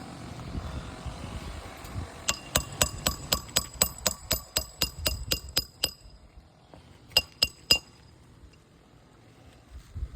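Hammer striking metal in a quick run of ringing taps, about five a second for several seconds, then three more near the end.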